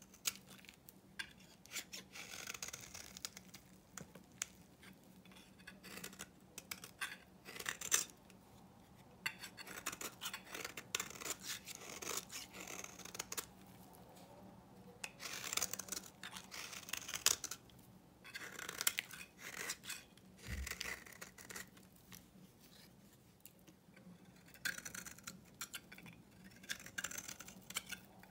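Snap-off utility knife blade shaving and carving an old bar of Svoboda-factory soap, in a series of crisp scraping strokes with short pauses between them as flakes and curls come off.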